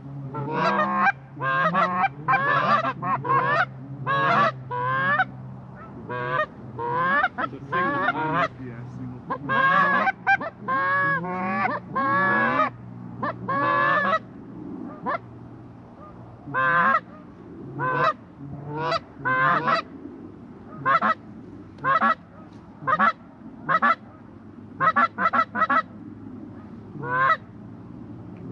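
Geese honking: a dense run of overlapping honks for about the first half, then single loud honks about one a second.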